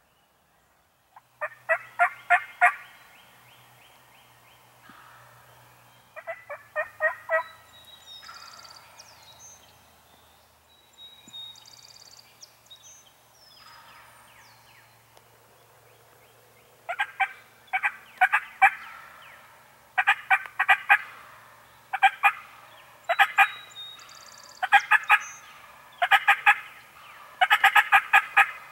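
Wild turkey gobbling about ten times: two gobbles early on, then a quick run of gobbles in the second half. Faint songbird chirps lie between them.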